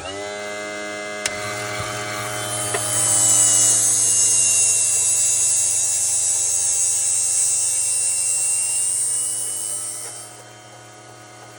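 CRC foam-tire truer's electric motor starting up and running with a steady whine. From about three seconds in to about ten, a loud hiss as the cutting bit shaves about 0.3 mm off the spinning foam tire, the motor's pitch sagging slightly under the cut and rising again as it ends.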